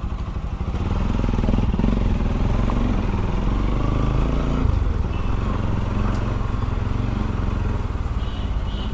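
Bajaj Pulsar NS200's single-cylinder engine running under way through an Akrapovic exhaust fitted with a dB killer, a light bassy exhaust note rather than a loud one. The engine picks up about a second in and its note changes near the middle.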